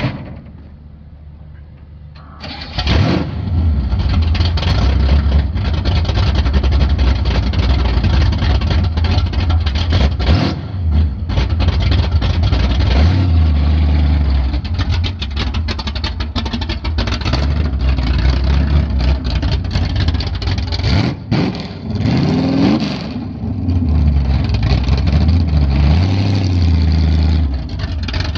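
A 1961 Ford F100's 434-cubic-inch V8 cranks briefly and catches about two and a half seconds in. It then runs loud and steady, and is revved a few times, most clearly about three quarters of the way through.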